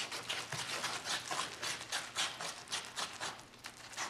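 Kitty Hair fiberglass body filler being mixed with hardener: quick, irregular scraping and tapping strokes, several a second.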